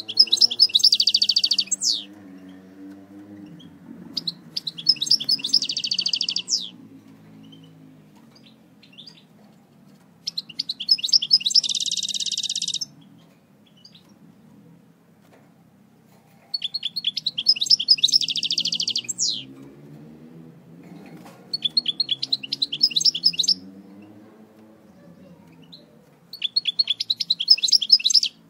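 European goldfinch of the eastern Algerian type singing: six phrases of fast, high twittering song, each about two to three seconds long, with short pauses between them.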